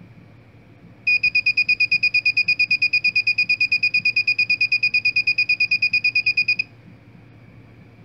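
Small electronic buzzer driven by a 555 timer circuit, beeping rapidly with a high, steady-pitched tone at about seven beeps a second. It starts about a second in, once the 9-volt battery is connected, and cuts off suddenly near the end.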